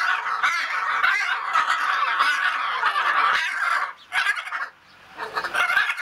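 Hyacinth macaws calling in a long run of rapid, raspy chatter, breaking off after about four seconds and starting again near the end.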